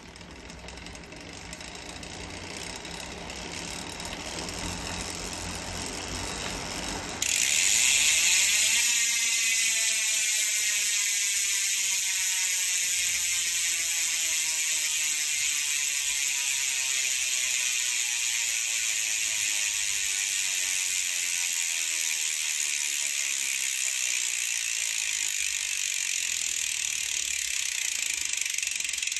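Carbon-Ti X-Hub SP freehub on a mountain bike rear wheel, a 56-tooth ratchet ring worked by four pawls. A rising whir as the wheel spins up gives way about seven seconds in to a sudden loud freewheel buzz, whose pitch falls slowly as the coasting wheel loses speed.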